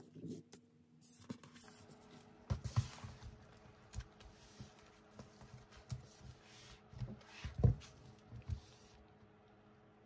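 Shrink-wrapped hardcover albums being handled and set down on a table: a series of soft knocks and thumps with plastic rustling, the loudest thump about three-quarters of the way through. Underneath, an electric fan hums steadily.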